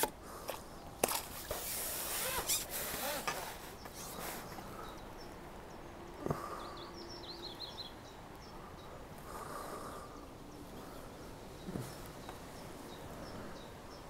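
Irregular splashing at the water's surface for the first few seconds as a hooked fish is played in and netted, then calmer lakeside ambience with a short run of bird chirps in the middle.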